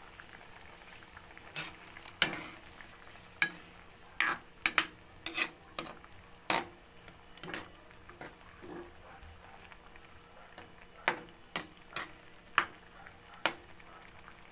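Metal spatula stirring and scraping in a metal wok of boiling broth with pork and shrimp, mixing in salt just added. There are sharp, irregular clanks of the spatula against the pan, in clusters, over a steady faint bubbling hiss of the broth.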